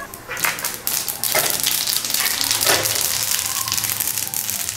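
Sesame seeds frying in hot oil together with mustard and cumin seeds in a nonstick pan, a tempering of whole spices. It is a steady sizzle full of quick crackling pops that picks up about a third of a second in as the seeds spread through the oil.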